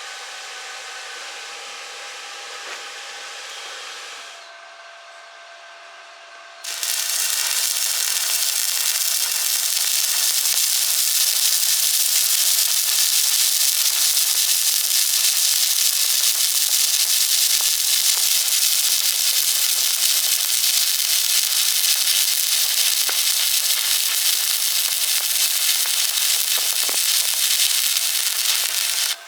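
Arc welding: the electrode's arc starts suddenly about seven seconds in and crackles and sizzles steadily and loudly for over twenty seconds. Before that, a quieter steady hiss with a faint hum runs for about four seconds.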